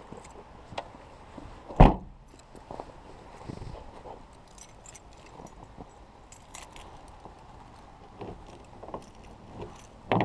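A 1986 Pontiac Firebird's door is shut with a single loud thump about two seconds in. A bunch of keys jingles in hand, with a couple of sharp clicks near the end as a key goes into the door lock.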